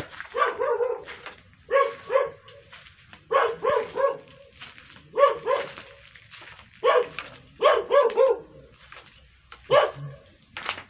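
A dog barking in quick runs of two to four short, fairly high barks, a run every second or so.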